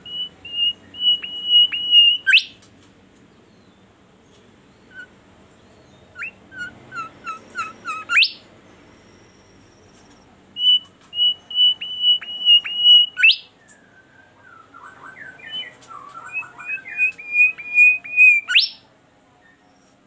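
Caged bimoli songbird singing in four phrases, about one every five seconds. Each phrase is a quick run of repeated high whistled notes that ends in a sharp rising flourish. The last phrase opens with lower, warbling notes.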